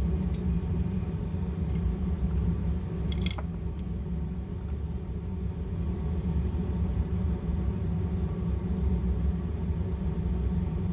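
Steady low hum of workshop background noise, with a few small metallic clicks from the trigger parts of a Beretta 71 pistol being handled during disassembly, the sharpest about three seconds in.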